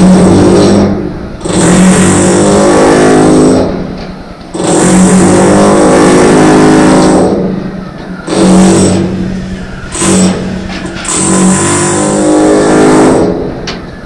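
A motor running in repeated bursts of a few seconds, each starting sharply and then dying away.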